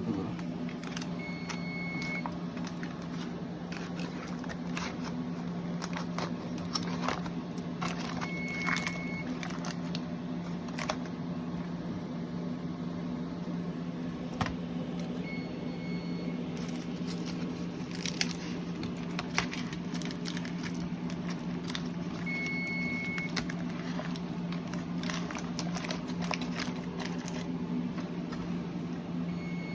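Steady low machine hum with many scattered clicks and clatters, and a short, high electronic beep about every seven seconds, five times in all.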